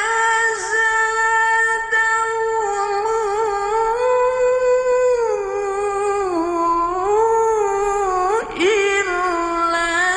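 A single voice singing a slow, wordless-sounding melody in long held notes that glide gently up and down, with a short break near the end.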